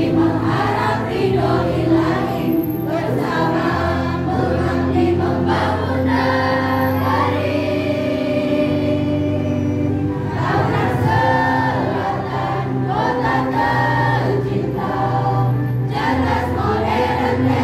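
Choir singing a hymn in Indonesian, with long held notes.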